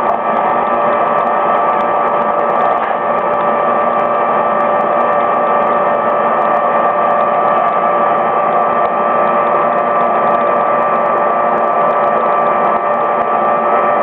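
Small propane burner running steadily, a loud even hiss with a held hum-like tone, heating an aluminium compressor head for brazing.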